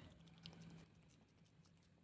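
Near silence: faint room tone with a low hum that fades out a little under a second in, and a few soft ticks.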